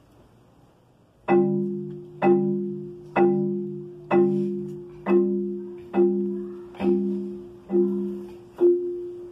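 Marimba playing a slow series of struck chords, about one a second, each ringing out and fading before the next. The first chord comes about a second in, after a moment of quiet.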